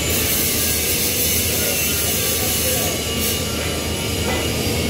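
TIG welding on chrome 5 alloy steel pipe: a steady hiss from the arc and shielding gas over a constant low electrical hum, with a brief louder flare a little after three seconds in.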